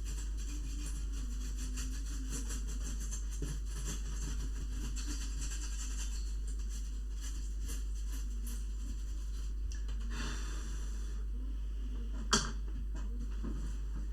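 Light handling noises from a laptop being worked on: faint scratching and small clicks, busier in the first half, over a steady low electrical hum, with one sharp click about twelve seconds in.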